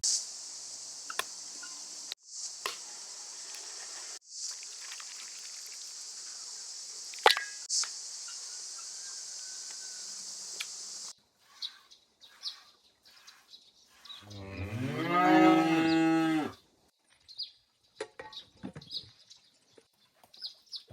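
A cow moos once, one long call of about two and a half seconds that rises and then falls in pitch, about two-thirds of the way through. Before it, a steady high hiss with a few sharp clicks runs and then stops abruptly.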